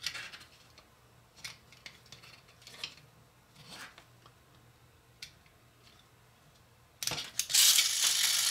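Light clicks and taps of the plastic toy eagle's body and wing parts being handled and pushed together. Near the end, a loud, steady rattling hiss starts suddenly.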